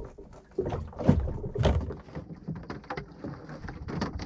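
Water slapping and knocking against the hull of a small open boat rocking at sea, in irregular strokes, with louder slaps about a second in and again shortly after.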